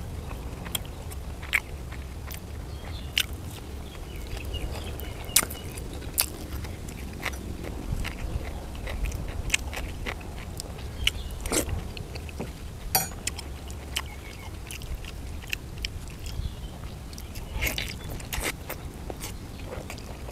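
Close-miked chewing and biting of grilled sausage: wet mouth sounds with many short, irregular clicks.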